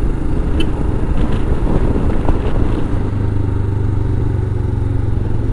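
Royal Enfield Himalayan's single-cylinder engine running while the bike rides in traffic. The engine settles into a steady note about halfway through.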